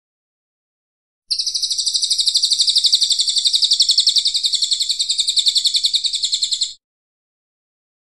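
Cililin coklat singing one long, fast, even trill, high-pitched and lasting about five and a half seconds. It starts about a second in and cuts off sharply near the end.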